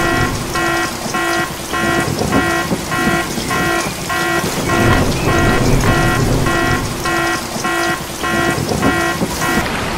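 Electronic alarm beeper sounding a steady run of short, identical pitched beeps, a little under two a second, over constant background noise.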